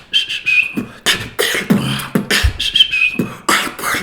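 Beatboxing: a mouth-made beat of kick and snare strokes with a short, slightly falling whistle laid over it twice. The whistle is made without the lips, using only the tongue against the upper front teeth.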